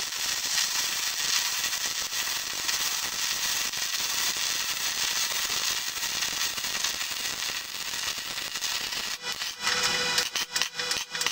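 Gas-shielded MIG welding arc crackling and sizzling steadily as a weave bead is laid over a steel tube joint. Near the end it sputters on and off and stops.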